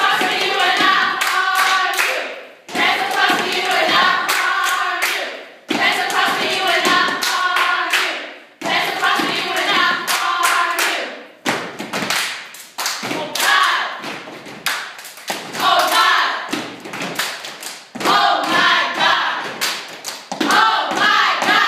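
A step team of girls chanting in unison while stepping, with rhythmic hand claps and foot stomps on a hard floor. It comes in phrases of about three seconds with short breaks between them, and the phrases get shorter after the first half.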